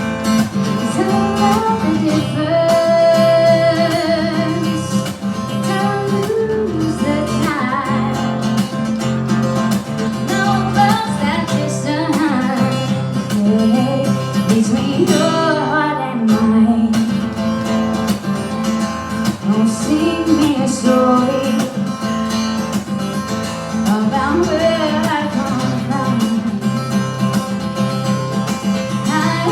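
Live acoustic guitar, strummed and picked, with a woman singing a slow melody over it.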